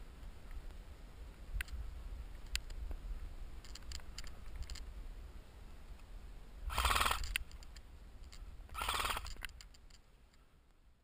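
Steady low rumble of wind on an action camera's microphone outdoors, with a few scattered clicks and two loud sounds, each under a second long, about seven and nine seconds in. The sound fades out at the end.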